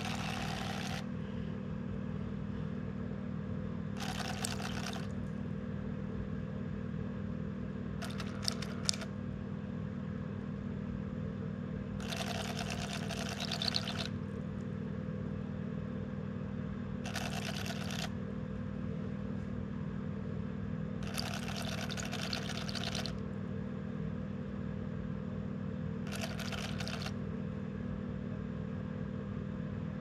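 Small DC motor of a prototype cicada fishing lure running with a steady whir as its wing blades spin in a bucket of water. The blades throw up short bursts of splashing, about one every four seconds.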